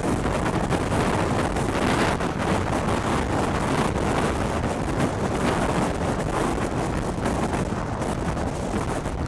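Strong gusty wind rushing and buffeting the microphone in a steady loud roar of noise: inflow wind blowing dust and rain across the road toward a large wedge tornado.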